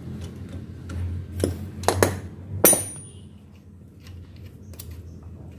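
Metal clinks of a socket and wrench bar on the outer CV axle nut of a car's front hub as the nut is turned off by hand. There are several sharp clinks in the first three seconds; the last is the loudest and rings briefly. Faint ticks follow.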